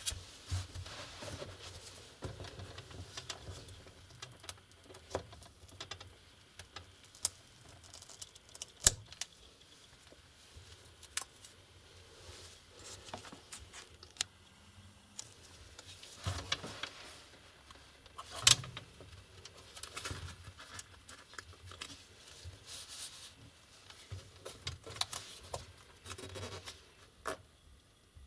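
Gloved hands handling a laptop LCD panel: scattered light taps, clicks and rustles as the panel is settled into the lid and its cable connector is worked at, with two sharper knocks, one about nine seconds in and one a little past halfway.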